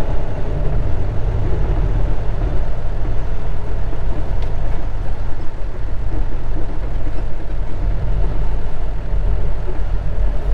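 Semi-truck's diesel engine running steadily, heard from inside the cab as the rig sets off, a continuous low rumble.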